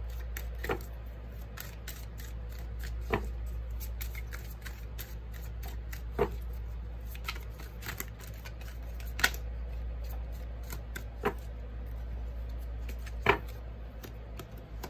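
Oracle cards being shuffled by hand: a soft flutter of card against card, with a sharper snap of the deck about every two to three seconds.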